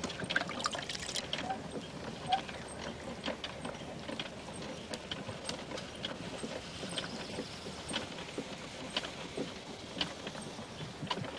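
Wet clay being shaped by hand on a turning potter's wheel: soft wet sounds of fingers and slip on the spinning pot, with scattered small clicks.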